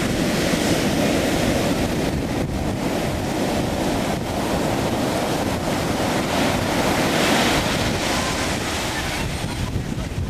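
Ocean surf breaking and washing up the beach, with one wave crashing louder about seven seconds in. Wind buffets the microphone, adding a low rumble.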